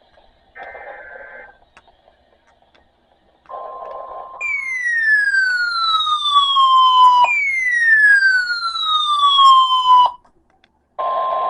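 Weather radio receiver sounding an emergency alert for a marine warning: a short burst of buzzy data tones about half a second in, a brief steady tone near 1 kHz, then two loud falling siren sweeps of about three seconds each that cut off suddenly. A steady 1 kHz tone starts again about a second later.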